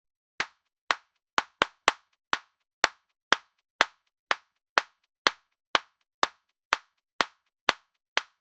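A single person clapping their hands, about eighteen separate, sharp claps at a steady pace of roughly two a second, with a quicker few near the start.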